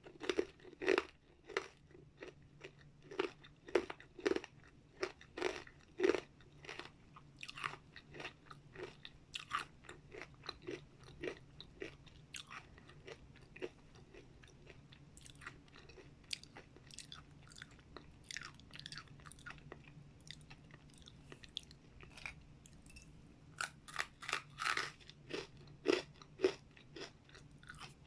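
Close-up chewing of crunchy dried vegetable and fruit chips: a steady run of crisp crunches, about one or two a second, with a louder cluster of bites near the end.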